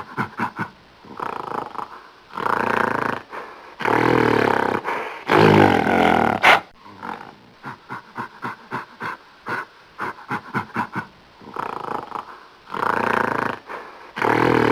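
Gorilla snarling: runs of short, quick grunts alternate with longer snarls, several seconds each, the loudest about six seconds in.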